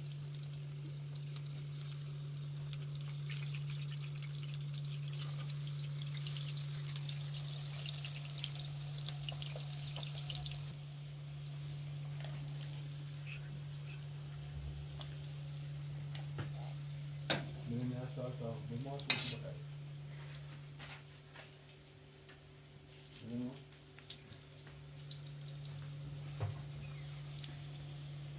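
Eggplant slices sizzling as they fry in oil in a grill pan, loudest in the first ten seconds. Sharp metal clinks of a fork against the pan and pot come near the middle and again near the end, over a steady low hum.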